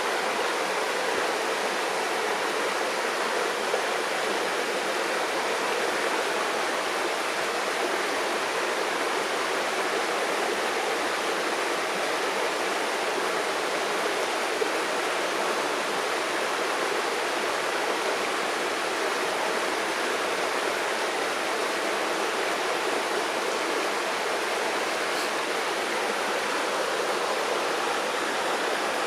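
Steady rush of flowing river water, an even noise that holds level without a break.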